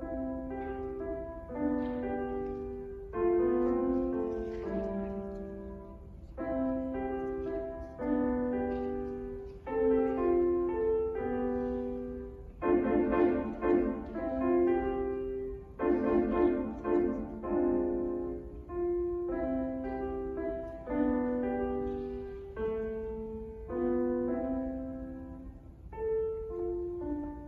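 Grand piano played solo: a simple melody in short phrases, with a few bars of repeated chords about halfway through.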